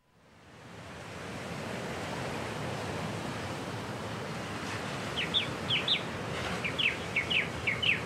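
Steady rushing noise like surf or wind, fading in over the first two seconds. From about five seconds in, a bird gives a run of short, quick falling chirps.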